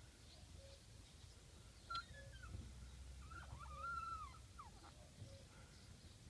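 Driveshaft of a VAZ 21063 squeaking from its worn rubber flex coupling (giubo). A short chirp comes about two seconds in, then a longer squeal that rises and falls near the middle, over a faint low rumble.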